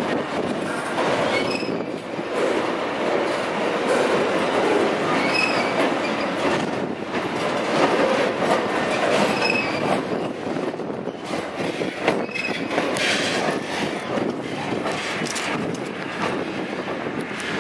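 MRS freight train's flat wagons rolling past close by: a steady rumble of wheels on rail, with clatter over the rail joints and a few short wheel squeals.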